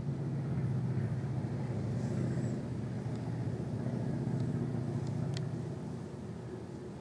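A desk globe spinning, giving a steady low rumbling whir that starts suddenly and eases off slightly near the end.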